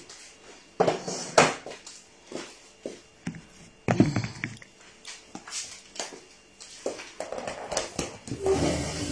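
Irregular knocks, clicks and rustling of someone moving about and handling things close to a phone in a small, echoey room, busier and louder near the end.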